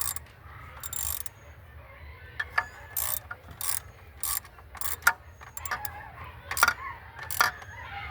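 Ratchet wrench worked in short, uneven strokes, clicking in quick rasps about once every half second to a second while the alternator is bolted into place.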